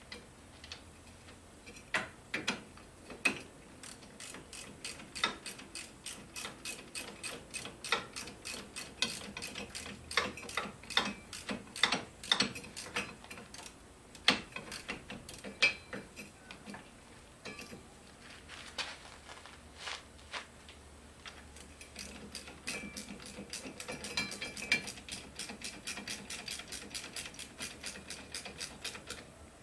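Hand ratchet wrench clicking in quick runs of strokes with short pauses, with a few louder knocks, as fasteners are turned during reassembly.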